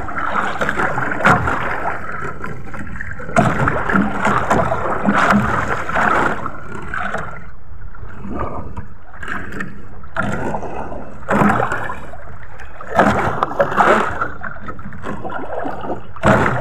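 Sea water rushing and slapping against the hull of a small outrigger fishing boat on choppy water, in irregular surges.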